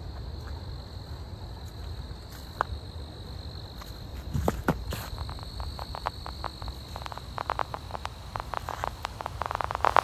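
Insects trilling steadily at one high pitch over a low rumble. From about four seconds in, dry fallen leaves crunch and crackle underfoot in quick clicks that grow busier toward the end.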